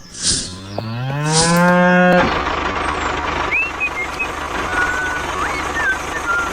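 A cow mooing once: a low call that rises in pitch and is held for about two seconds. Then a steady noisy farmyard-style background with a few short high whistled chirps.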